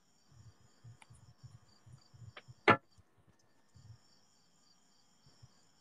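Soft, quick knocks and one sharp click from a phone being handled and tapped, over a faint, steady, pulsing high chirring of insects.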